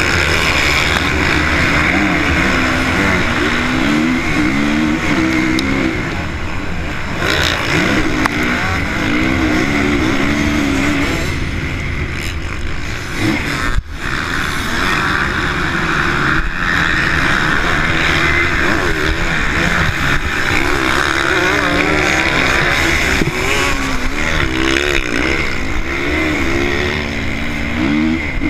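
Honda CRF450 single-cylinder four-stroke motocross engine at racing throttle, its pitch rising again and again as the rider revs up and shifts through the gears. The engine note briefly drops off about fourteen seconds in, then picks up again.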